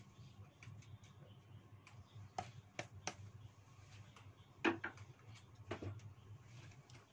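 A few sharp knocks and clicks of a wooden spatula against a wok as the stir-fry is finished, the loudest a little under five seconds in, over a low steady hum.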